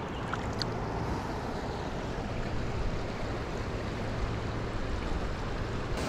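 A rocky creek's water rushing, a steady, even hiss.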